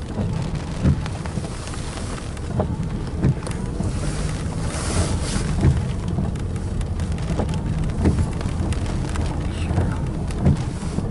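Rain striking a car's windshield and roof as irregular sharp taps, over a steady low rumble of wind buffeting the car. A rushing hiss swells briefly about five seconds in.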